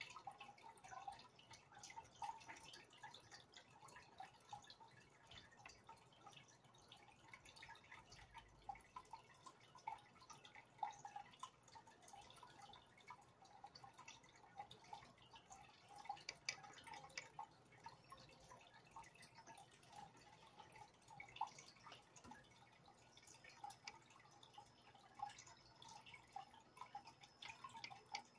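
Faint, irregular dripping and trickling of aquarium water, a steady run of small plops and pops.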